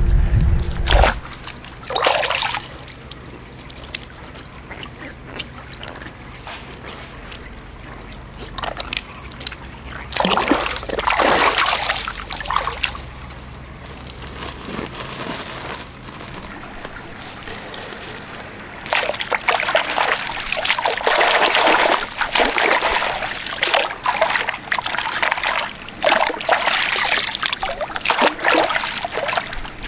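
Shallow stream water splashing and sloshing as someone wades through it and swishes freshly dug taro roots clean. The splashing comes in short bursts at first, then runs almost continuously through the last third.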